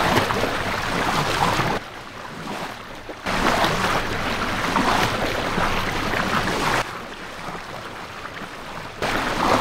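Water rushing and splashing, as from a boat's bow wave pushing through the sea. It is loud, then abruptly quieter about two seconds in, loud again from about three seconds, quieter again near seven seconds and loud again near nine.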